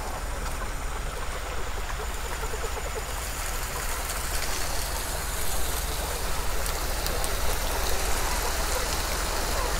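Water pouring from an overhead pipe onto stacked crates of live chickens on a truck, a steady splashing hiss that grows louder about three seconds in, over a low steady hum. The load is being soaked to keep the birds from dying of heat.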